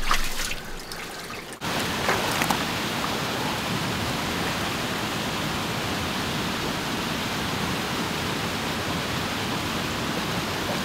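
Quieter water trickling and splashing for the first second and a half, then an abrupt change to the steady, even rush of a river.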